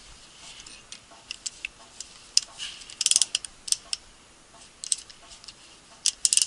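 Scattered sharp metallic clicks and clinks of a caliper spreader tool and other metal tools being handled at a car's front brake caliper, bunched into a few quick clusters.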